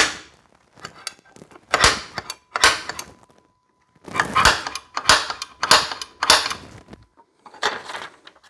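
Center punch marking hole centers through a paper template into a steel plate: a series of sharp metallic clicks, spread out, with several close together in the middle.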